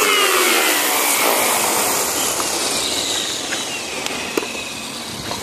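JR Forza 450 electric RC helicopter spooling down after landing: the motor whine and rotor hum fall steadily in pitch and fade away.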